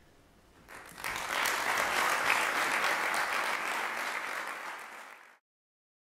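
Audience applause: a crowd of hands clapping breaks out about a second in, swells and holds, then cuts off abruptly near the end.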